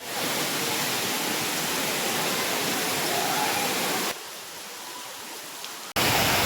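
Waterfall: a steady rush of falling water. The sound drops abruptly to a softer level about four seconds in and jumps back up about two seconds later.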